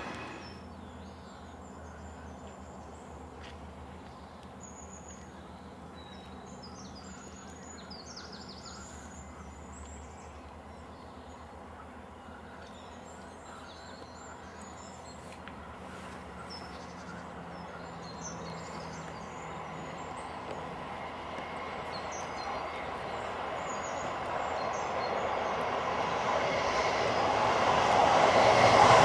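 Class 158 diesel multiple unit approaching and passing close by, its engine and wheel noise swelling steadily to loudest at the end. Birds chirp throughout, and the low hum of another diesel unit heading away fades out about ten seconds in.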